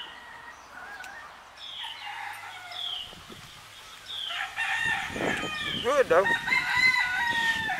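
Chickens calling: a few short falling clucks, then a rooster crowing in the second half, one long drawn-out call that ends near the end.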